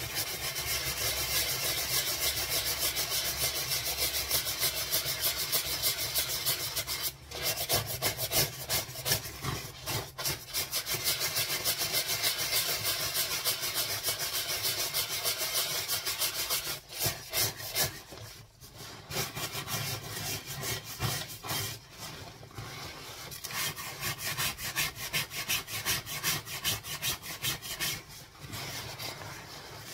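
Bristle scrubbing brush scrubbing a wet reflective puffer jacket with detergent in rapid back-and-forth strokes, with a few short pauses.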